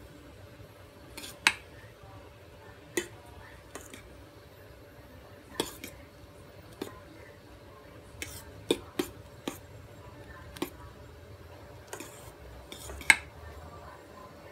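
A metal spoon stirring a runny egg and minced fish mixture in a stainless steel bowl. It clinks against the bowl's side at irregular intervals, roughly a dozen sharp clinks, the loudest near the end.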